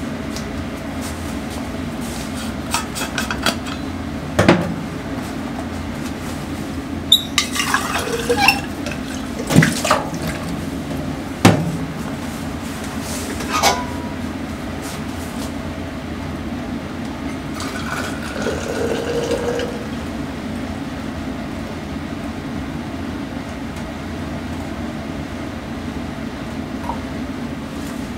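Metal kitchenware clanking and knocking: a saucepan and a vacuum flask's lid being handled, several sharp knocks. Later, for about two seconds, hot tea is poured from the saucepan into a stainless vacuum flask, over a steady low hum.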